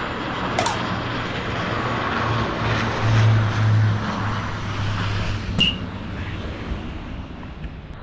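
Distant jet airliner passing over the airport, a steady rushing roar with a low hum that swells for a second or two midway. Two sharp clicks cut in, once early and once a little past halfway.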